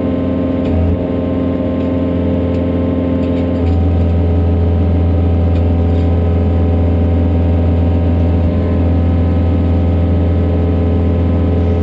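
Yanmar ViO57 mini excavator's diesel engine running steadily, heard from inside the cab; about four seconds in it steps up to a louder, slightly different steady note as the machine works the boom lifting a curbstone.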